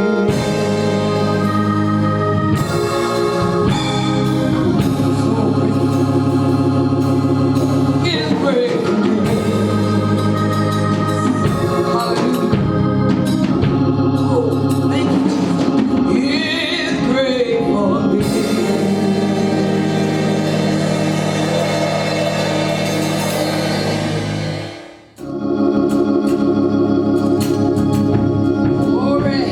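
Gospel music with organ playing sustained chords and a voice singing over it in places. The music drops out for about a second near the end, then the organ comes back in.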